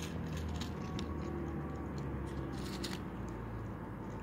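A cat crunching dry kibble: irregular sharp crunches and clicks over a steady low background hum.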